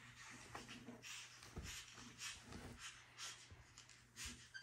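Faint, soft rustling of bedding in short scattered bits as two monkeys tumble and play-wrestle on a bed.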